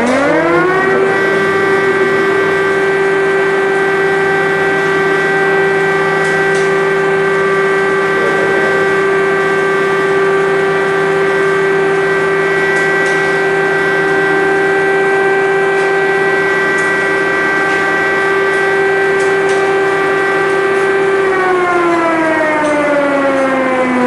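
Civil defence siren sounding loudly in one long wail: its pitch rises within the first second, holds steady for about twenty seconds, then begins to fall near the end.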